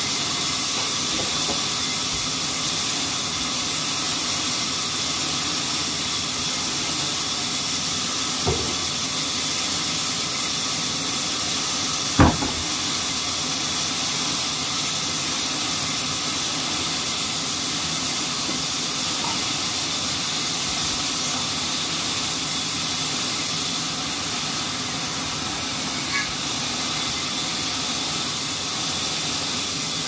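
Horizontal band sawmill running with a steady, even noise as its blade saws through a teak log on the carriage. There is one sharp knock about twelve seconds in, with a fainter one a few seconds before it.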